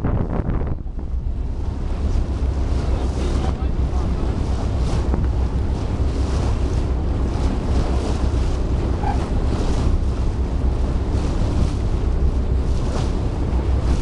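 Wind buffeting the microphone in a steady low rumble, over the wash of choppy sea water around a small boat.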